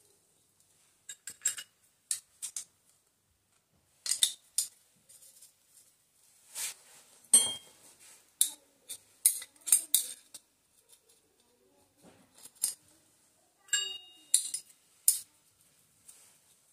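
Hero Honda HF Deluxe clutch plates, friction and steel, clinking against each other as they are stacked by hand onto the clutch hub: scattered light metal clicks, a few ringing briefly.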